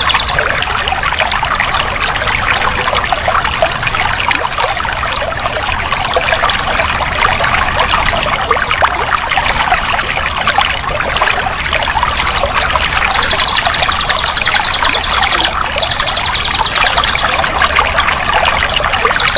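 Running water trickling and splashing steadily. About two-thirds of the way in, a high, rapid trill joins it for a few seconds, broken once briefly.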